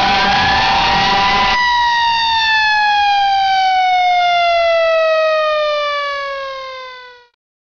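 Fire truck siren wailing over a loud rushing noise. The rush cuts off about a second and a half in, and the siren then winds down in one long, slowly falling tone that fades away near the end.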